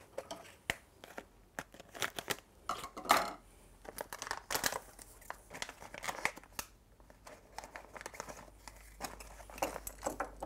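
Plastic foil blind bag being torn open and crinkled by hand: irregular sharp crackles and rustling, loudest about three seconds in.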